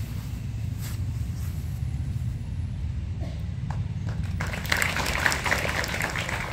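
A small group applauding, starting about two-thirds of the way in, over a steady low rumble.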